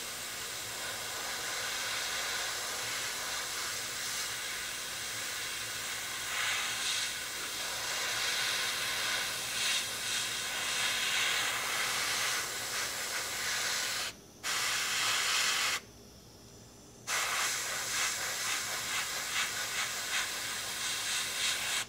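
Gravity-feed airbrush spraying paint, a steady hiss of air. The hiss cuts out twice briefly about two-thirds of the way through.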